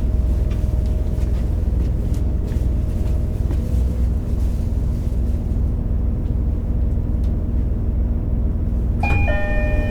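Steady low rumble of an H100 diesel railcar's engine running, heard from inside the car, with a faint steady hum that stops about four seconds in. Near the end an electronic chime starts.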